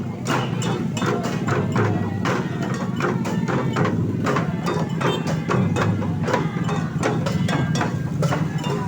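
Music with busy percussive knocks, several a second, over a steady low drone.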